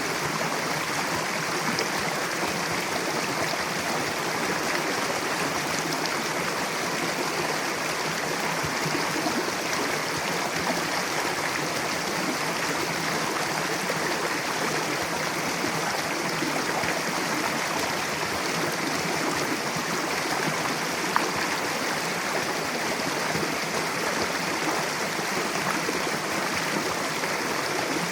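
Mountain river rushing steadily over rocks, a continuous even water noise.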